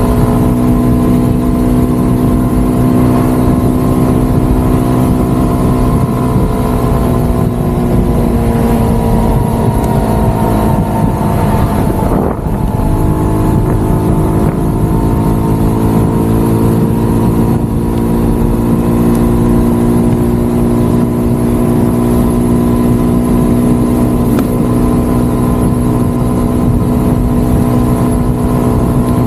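Motorcycle engine running steadily while riding at road speed. About twelve seconds in, the engine note sinks as the bike slows, breaks off for a moment, then climbs and settles again. A low rush of wind on the microphone runs under it.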